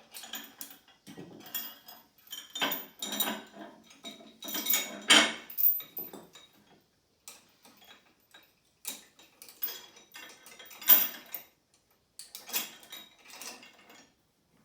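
Metal weight plates clinking and clanking as a 2.5-pound plate is loaded onto the lift, a run of irregular metal knocks and rattles, loudest about five seconds in and again near eleven seconds.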